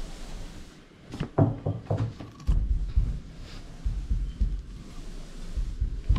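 Dull, irregular low thumps with a few light clicks near the start, from footsteps and the handheld camera being moved about.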